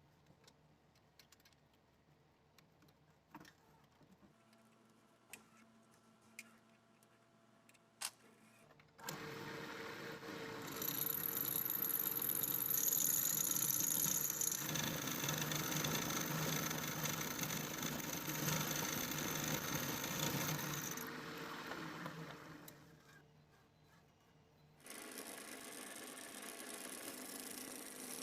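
Light clicks and taps, then an electric power tool running steadily for about thirteen seconds with a high whine, stopping, and starting up again near the end.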